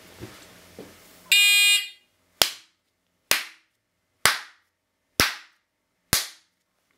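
CED 6000 shot timer's electronic start beep, loud and lasting about half a second, followed by five sharp hand claps a little under a second apart, each picked up and counted by the timer as a shot.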